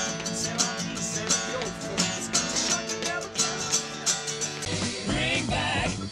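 Acoustic guitar strumming chords in a steady rhythm. About four and a half seconds in, it cuts abruptly to another recording of voices singing over guitar.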